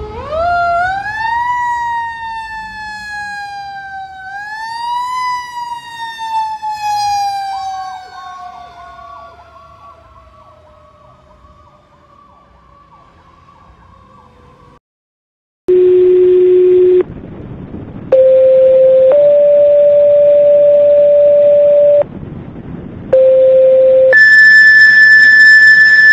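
Fire engine siren winding up twice and then slowly winding down in pitch over about ten seconds, fading as it goes. After a short gap, a fire dispatch alert plays a sequence of steady tones over the radio, each held a second or more and stepping between pitches, ending on a higher, brighter tone that announces the automatic alarm call.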